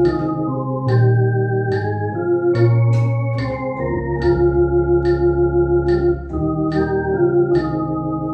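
Electronic organ playing a hymn introduction in held chords over a steady bass line, with a metronome clicking evenly at 72 beats a minute.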